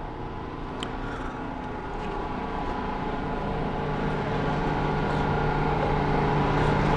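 A steady mechanical hum made of several held tones, growing gradually louder throughout.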